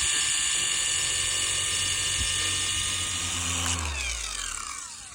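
Cordless orbital polisher running with a medium cutting pad and polish on a plastic headlight lens, a steady motor whine; about four seconds in its pitch falls and it winds down.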